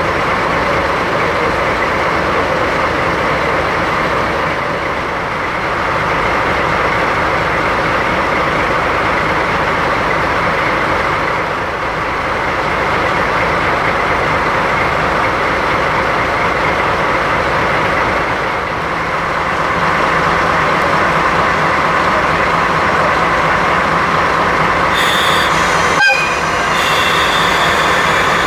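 DD51 diesel-hydraulic locomotive with its twin diesel engines idling close by, a loud, steady drone. Near the end a higher hiss and a single sharp click join in.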